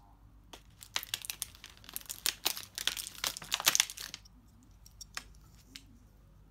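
Thin clear plastic packet crinkling as a hand rummages in it and draws out a small toy: a dense run of crackles for about three seconds, then a few scattered crackles.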